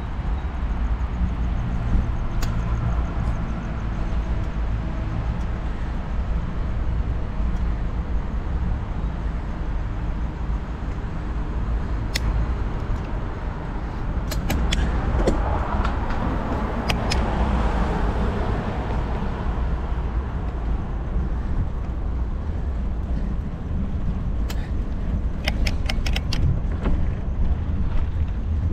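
Riding a bicycle: a steady low rumble of wind on the microphone and tyre noise. A louder rushing sound swells and fades about halfway through, and sharp clicks come now and then, several close together near the end.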